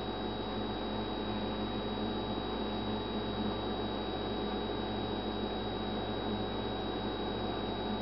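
Steady electrical hum with a thin, constant high whine above it and a faint hiss. Nothing starts, stops or changes.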